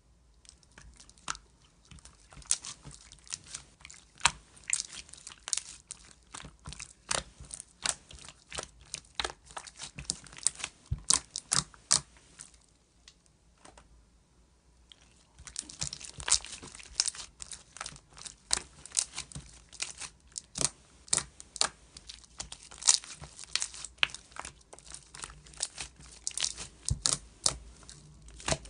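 Slime being squeezed and worked by hand, giving quick irregular crackling clicks and pops as air bubbles in it burst. The clicking stops for about two seconds halfway through, then comes back just as thick.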